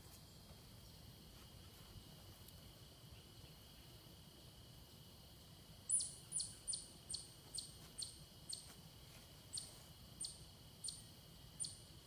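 A bird calling a run of about eleven sharp, high, down-slurred notes, starting about halfway in and spacing out toward the end, over faint outdoor ambience with a steady thin high hum.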